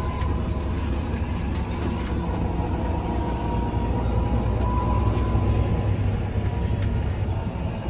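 Tractor engine running steadily under load while hauling a manure spreader: a low drone with a faint high whine that drifts slightly lower.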